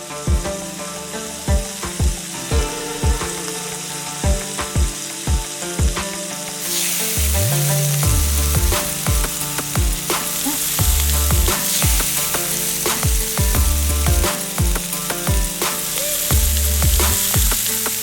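Food frying and sizzling on a hot pan, with stirring; the sizzle grows louder about seven seconds in. Underneath runs electronic background music with a steady kick-drum beat and deep bass notes.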